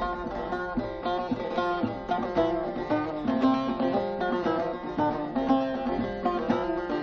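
Bağlama (saz), the Turkish long-necked lute, plucked in a quick, continuous run of notes: a folk tune.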